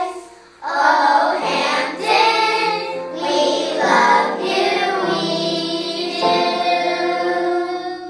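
Children singing a song with musical accompaniment, in long held phrases.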